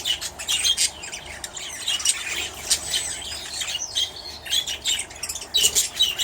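A flock of small aviary birds chirping and chattering, many short high calls overlapping without pause.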